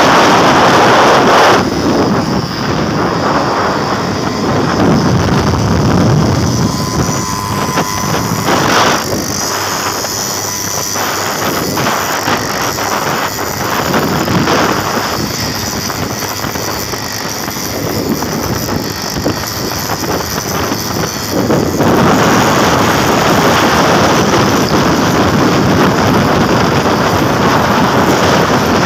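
Heavy wind rushing over the microphone with vehicle and road noise underneath, from riding in an open vehicle at highway speed. It eases about two seconds in and comes back louder about 22 seconds in.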